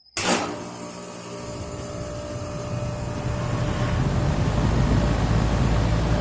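2008 NuTone 2.5-ton central air conditioner condenser starting up. Its Copeland scroll compressor kicks in with a sudden loud surge, then runs in a steady hum that grows gradually louder over the next few seconds as the condenser fan comes up to speed.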